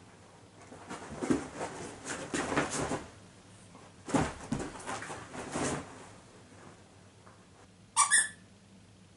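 A pet scratching and pawing at a floor mat with a squeaker built in, in two rustling spells. Near the end a squeaker gives a loud, short squeak in two quick pulses.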